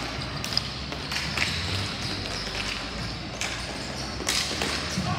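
Ball hockey play: a handful of sharp knocks from sticks and the ball on the court, spaced irregularly over steady background noise.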